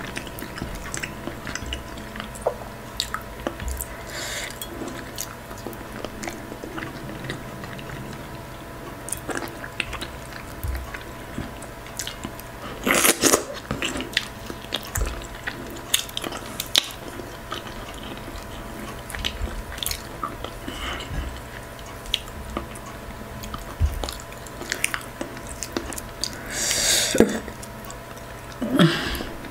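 Close-miked eating of fufu with okra stew by hand: wet chewing and lip smacks with many small clicks, and two louder, longer wet mouth sounds, one near the middle and one near the end. A faint steady hum lies underneath.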